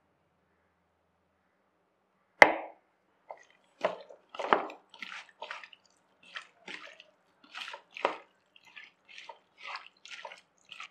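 A single sharp knock about two and a half seconds in, then irregular wet squelching as a bare hand mixes raw peeled prawns with turmeric, salt and chilli powder in a plastic bowl.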